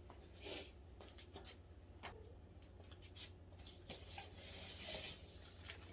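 Faint rustling with a few light clicks and taps, and a short hiss about half a second in.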